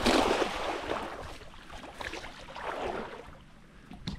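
Shallow water splashing and sloshing, loudest at the start and then fading, with a brief sharp click near the end.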